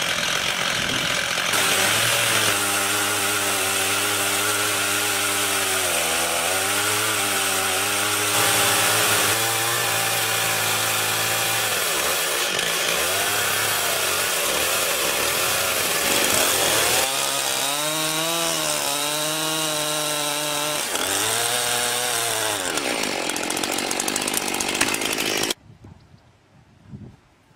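Chainsaw in a mini mill running at high revs, ripping lengthwise through a log. The engine's pitch dips and recovers several times as the chain works through the wood, and the sound stops abruptly near the end.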